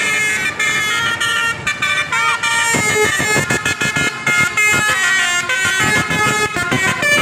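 Bus telolet horn (a Basuri multi-tone horn) playing a rapid melody of loud, high horn notes that change pitch several times a second, with a short warbling glide about two seconds in.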